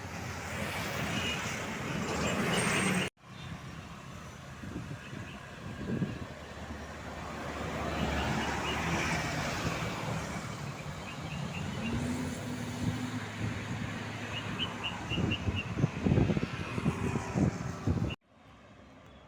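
Road traffic: vehicles driving past close by, loudest about fifteen to seventeen seconds in. The sound cuts off abruptly twice, about three seconds in and near the end.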